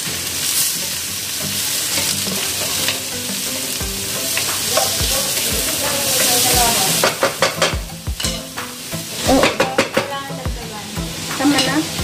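Sliced vegetables sizzling in a frying pan as a wooden spatula stirs and turns them. From about seven seconds in, the spatula knocks and scrapes against the pan in a quick run of strokes.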